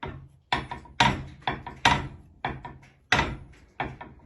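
Thick steel bearing mounting plate rocking on a flat surface, clunking about eight times at irregular half-second intervals as it tips from corner to corner: the plate is twisted and will not sit flat.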